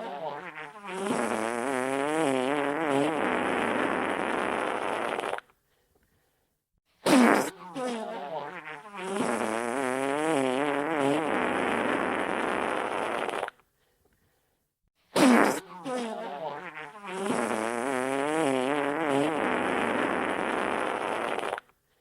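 Wet fart sound effect played on a loop, about every eight seconds: each one starts with a sharp blast, goes into a wet, sputtering flutter that wavers in pitch, then a long steady spluttering hiss that cuts off suddenly before a short silence.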